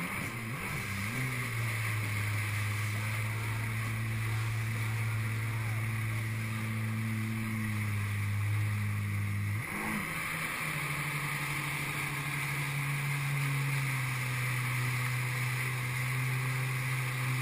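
Jet ski engine running at a steady throttle over the rush of water. The engine note steps up slightly about ten seconds in.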